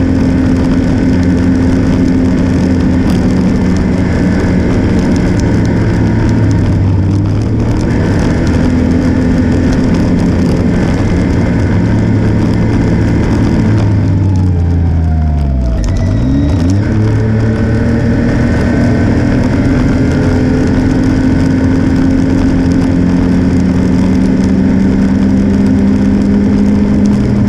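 Vehicle engine running at a steady cruising speed. A little past halfway it drops nearly to idle as the vehicle slows, then revs back up as it speeds away again.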